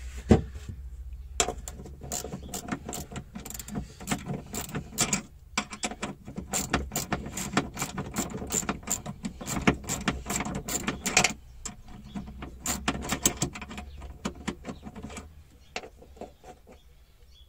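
Socket ratchet wrench clicking rapidly as it is worked back and forth on a shock absorber's top-mount nut. The clicking breaks off briefly about five seconds in and stops about two seconds before the end.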